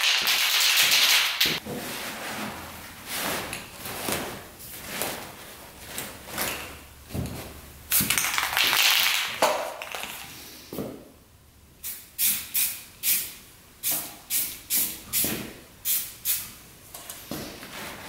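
Rust-Oleum aerosol spray paint can hissing: a long spray at the start and another about eight seconds in, then a quick run of short bursts near the end, with fainter short sounds between.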